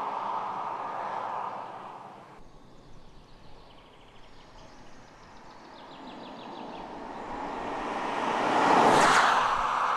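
BMW 6 Series Coupé (F13) driving away and fading, then, after an abrupt change about two seconds in, approaching and passing close by. The engine and tyre noise grow steadily louder and peak near the end.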